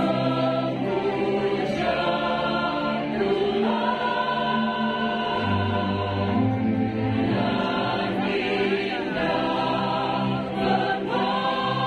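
Mixed choir of young men and women singing together, holding long chords that change every second or two.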